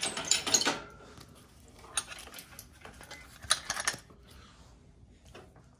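Light metallic clinks and rattles from a digital hanging scale's steel hook and ratchet-strap hardware being shifted by hand. They come in a few short clusters, about two seconds in and again around three and a half seconds in.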